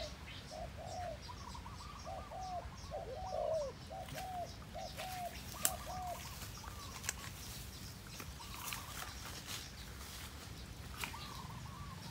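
Two spotted doves cooing back and forth, a caged decoy and a wild dove answering it. A lower series of repeated coos fills the first four seconds, and higher coos answer in short groups through the rest. A couple of sharp clicks come in the middle.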